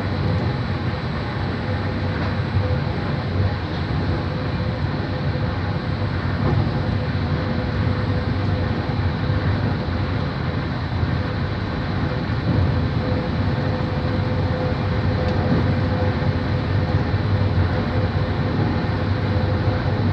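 Moving train running with a steady, unbroken rumble and a faint constant whine above it.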